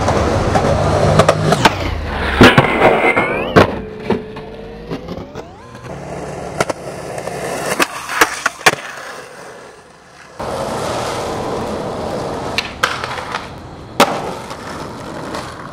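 Skateboard wheels rolling over concrete, with sharp cracks of the board popping and landing several times.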